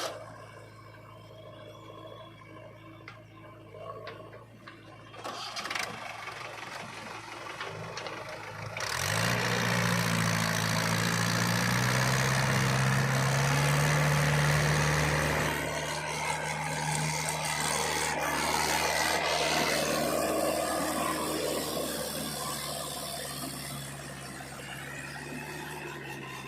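Heavy diesel engine idling low, then revving up sharply about nine seconds in and running hard under a loud rushing noise for several seconds before easing back down toward the end.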